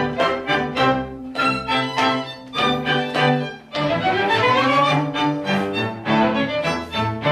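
Violin and cello playing a Bohemian polka in a bouncing two-beat rhythm. Just before four seconds in the music briefly drops away, then a phrase climbs and falls before the bouncing beat returns.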